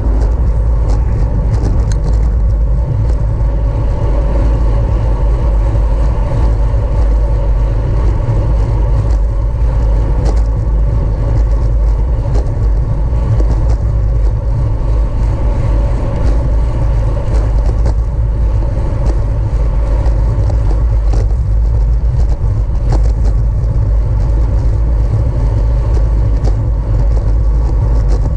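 Wind buffeting the microphone of a camera on a racing bicycle at speed: a loud, steady low rumble.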